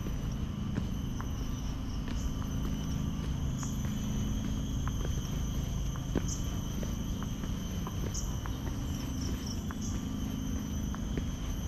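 A steady high insect chorus, with a brighter chirp standing out every couple of seconds. Under it are the low rumble and soft scattered ticks of someone walking on a stone path.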